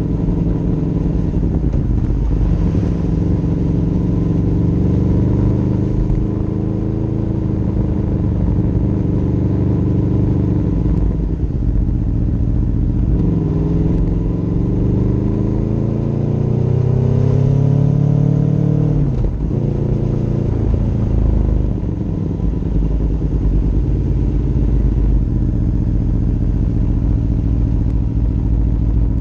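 Motorcycle engine running on the move, the pitch sagging and recovering through gear changes. About halfway through it rises steadily as the bike accelerates through a gear, then drops sharply at a shift.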